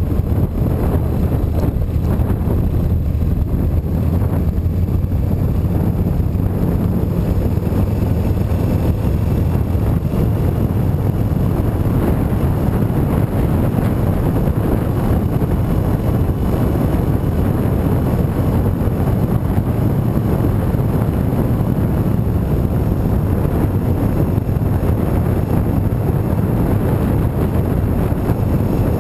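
A motorcycle riding at low speed: its engine running steadily under a constant rush of wind noise on an uncased handlebar-mounted action camera's microphone.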